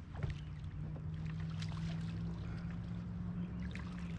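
Water splashing beside a fishing kayak as a hooked bass thrashes at the surface and is brought to the net, with short, scattered splashes. A steady low hum runs underneath.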